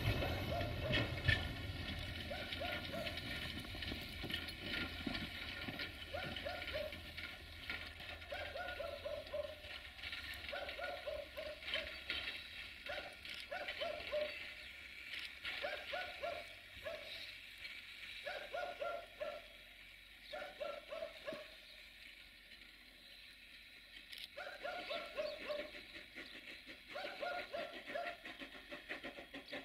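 Narrow-gauge steam locomotive's exhaust and steam noise, loudest at the start and fading over the first few seconds as it pulls away. Then an animal calls over and over in short cries that fall in pitch, in clusters of two or three every second or two.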